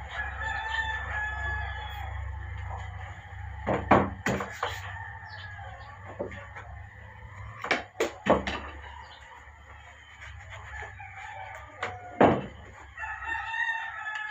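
A rooster crows twice, once just after the start and again near the end. In between come sharp knocks in three clusters, about 4, 8 and 12 seconds in, from a hand tool striking a rubber block on a workbench.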